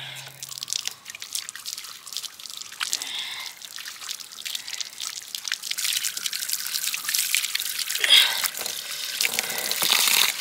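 Water trickling and dripping, with small splashes, getting louder towards the end.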